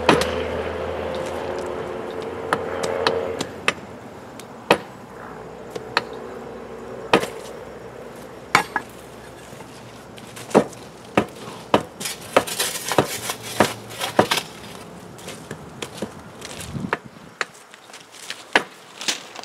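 A hammer striking again and again at the mould around a freshly poured thermite weld on a steel rail, knocking off the sand mould and slag. The blows are sharp and separate, a second or more apart at first and coming quicker about twelve seconds in. A steady low hum dies away over the first few seconds.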